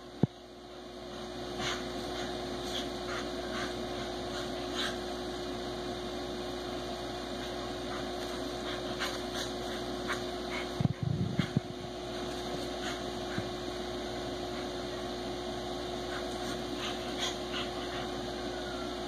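A pitbull and a basset hound play-fighting on a bed: scattered short clicks and snaps, and a brief cluster of thumps about eleven seconds in. A steady hum runs underneath.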